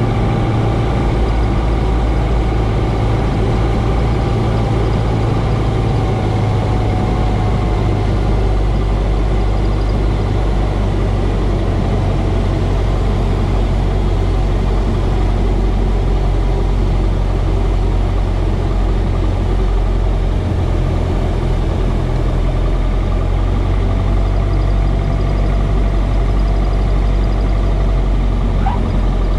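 Cessna 140's four-cylinder air-cooled engine and propeller, heard inside the small cabin, running at reduced power through a landing approach and touchdown: a steady, loud drone with airflow noise over it.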